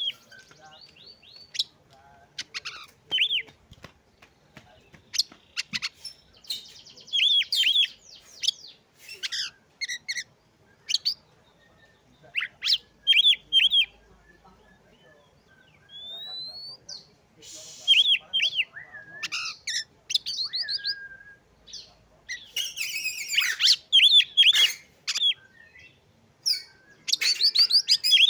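Oriental magpie-robin singing: a varied run of sharp chirps, quick trills and clear whistles in short bursts with brief pauses, including one rising whistle about two-thirds of the way in.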